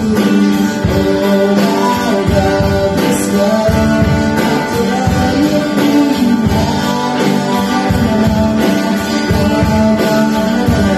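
Upbeat worship song played by a small band, electric and acoustic guitars over a drum kit with a steady beat, with singing.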